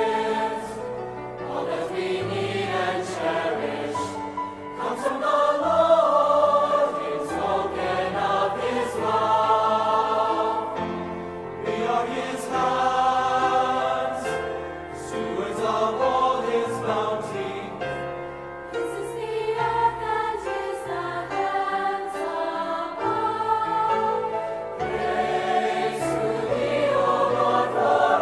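A choir singing a hymn, several voices in harmony holding long notes.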